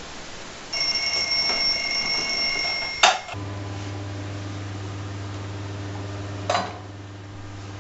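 Alarm clock going off with a high steady electronic tone for about two seconds, cut off by a sharp knock. Then a steady low electrical hum, with another knock a few seconds later.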